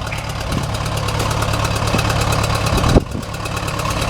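Old bulldozer's engine idling steadily with an even, pulsing beat. A single sharp knock comes about three seconds in.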